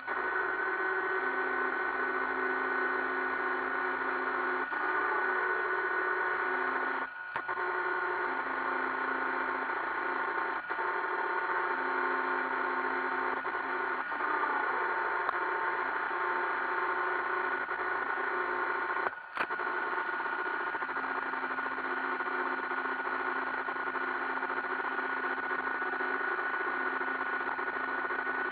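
iRobot Roomba 560 robot vacuum running, heard close up: a steady whir of its vacuum and brush motors with a steady whine. It cuts out for a moment twice.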